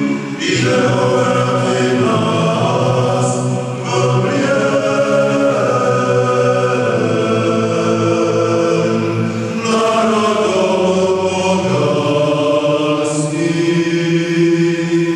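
A choir singing a chant in long held phrases, with brief pauses between phrases.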